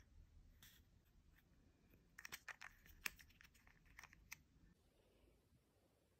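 Faint clicks and crinkles of small plastic toy parts being picked out of an opened Kinder Surprise egg's yellow plastic capsule, in a quick cluster from about two seconds in, the sharpest click near three seconds.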